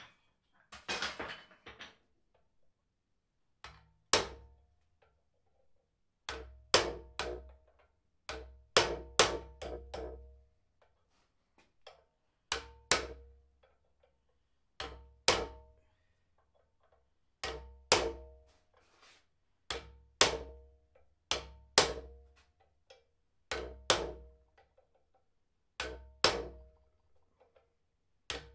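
Hammer blows on a hand chisel cutting detail into red-hot steel held in a vise. The blows are sharp and ringing and come in short clusters of one to three strikes, about every two seconds.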